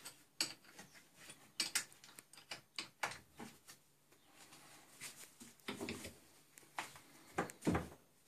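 Wrench working the mounting bolts of a homemade lathe's headstock to loosen them: a scattering of short metallic clicks and light knocks, loudest near the end.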